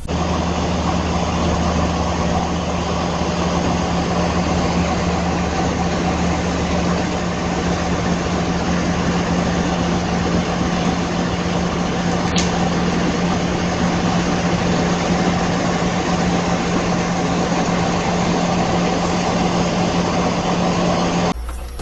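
Truck-mounted water-well drilling rig's diesel engine running steadily, a constant low drone.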